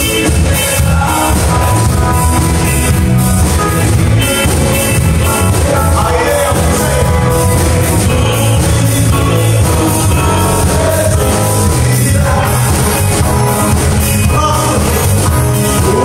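Live band playing an upbeat rock-style gospel song: amplified electric guitars, drum kit with a steady beat, keyboard and a male singer.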